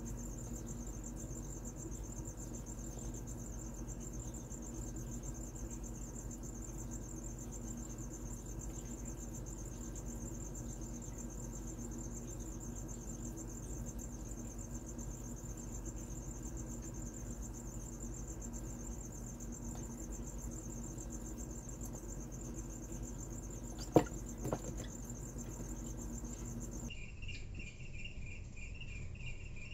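Crickets trilling steadily in a fast, high-pitched pulse over a low steady hum. One sharp knock comes about three-quarters of the way through, and near the end the trill switches abruptly to a lower pitch.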